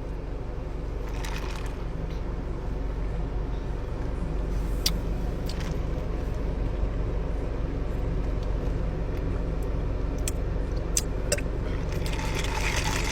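Steady low rumble of a car's engine and road noise, with a few light clicks scattered through it.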